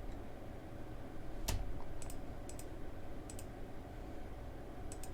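Computer mouse buttons clicking, about five sharp clicks, several of them double press-and-release clicks, the loudest about a second and a half in, over a steady low hum.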